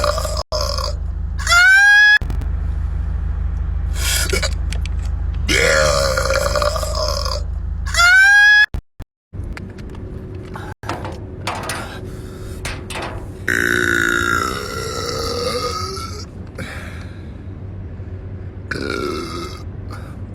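A man belching a series of long, loud burps, one after another. Two short rising squeals cut in, about two seconds in and again near eight seconds.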